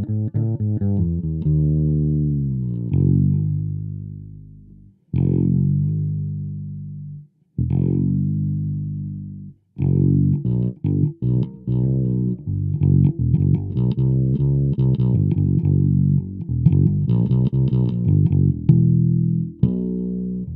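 Short-scale fretless electric bass played through a small VOX practice amp with no effects. Long notes slide in pitch and die away, with a few short pauses, and from about halfway through it moves into quicker, shorter notes.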